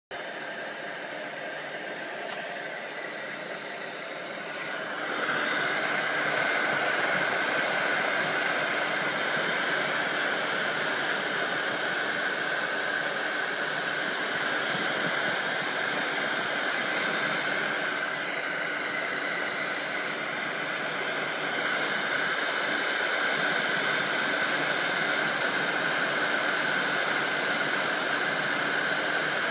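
Hot-air blower switched on about five seconds in, then running steadily: an even rush of air with a constant whine. It is heating thermochromic sunglasses to make them change colour.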